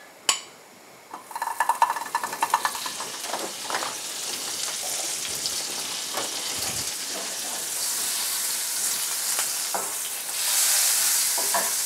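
A knob of butter sizzling as it melts in a hot frying pan, with a light knock just after the start. The sizzle starts about a second in with crackling and spitting, then steadies into a hiss that gets louder near the end as the pan is tilted to spread the butter.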